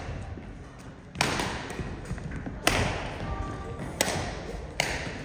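Badminton rackets striking a shuttlecock in a rally: four sharp hits about a second or so apart, each echoing in a large hall.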